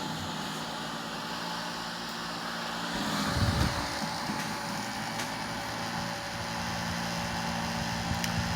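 Small USB portable table fan running steadily: a whir of moving air with a steady motor hum. The fan is slightly unbalanced and shifts about on the floor as it runs, and a brief louder low rumble comes about three seconds in.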